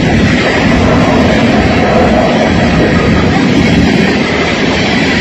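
Freight train's boxcars rolling past close by: a loud, steady noise of steel wheels running on the rails.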